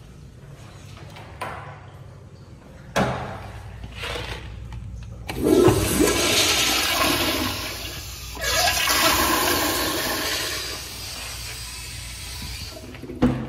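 Commercial wall-hung toilet flushing through its flushometer valve: a loud rush of water that surges twice, then tapers off. A sharp knock comes a couple of seconds before the flush, and another near the end.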